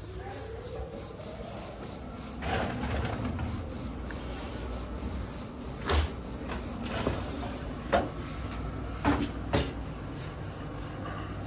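Wooden rolling pin rolling roti dough thin on a floured slab: repeated rubbing strokes, with a few sharp knocks in the second half.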